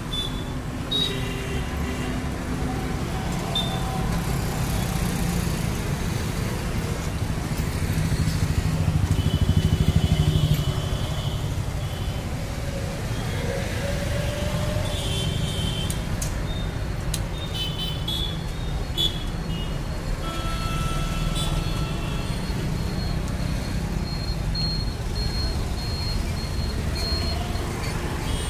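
Busy road traffic: a steady rumble of engines and tyres, with short horn toots now and then and one vehicle passing louder about ten seconds in. A string of quick high beeps comes near the end.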